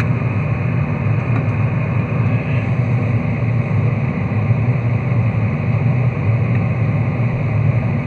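Freezer running with a steady, loud low hum, picked up from inside the freezer compartment.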